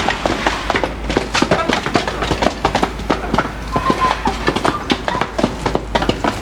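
Chickens in a pen: a dense patter of short clicks and knocks, with a few brief calls, over a steady low hum.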